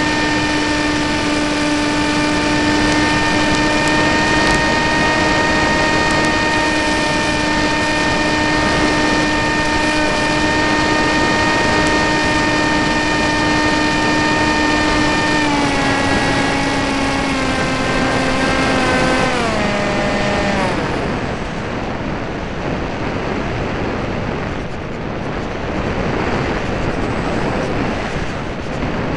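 An RC model airplane's motor and propeller, heard through its onboard camera over wind rush: a steady high drone that steps down in pitch three times about halfway through as the throttle is pulled back, then cuts out, leaving only the wind rush as the plane glides low over the ground.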